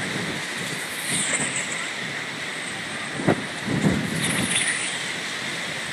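Wind buffeting the microphone, with the faint high whoosh of a Warhead 60 composite glider dynamic soaring at speed. The whoosh swells and falls twice: about a second in and again around four seconds.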